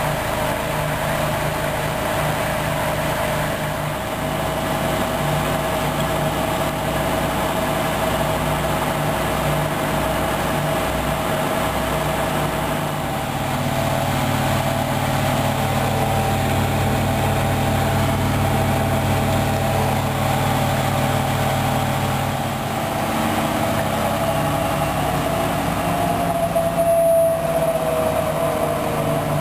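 Hoover Dynamic Wash DYN 10124 DP front-loading washing machine in its final high-speed spin: a steady motor and drum whine whose low tone shifts a couple of times, with a higher whine dipping in pitch near the end.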